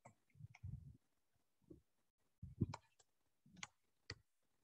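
Faint, scattered clicks and soft taps of a stylus writing on a tablet.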